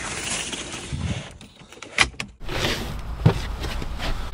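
A pleated cab window blind being drawn along its track: a sliding rasp, then a sharp click about two seconds in as it catches. After a break, a knock.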